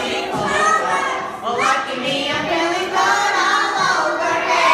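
A group of young children singing together in a large room, with held notes.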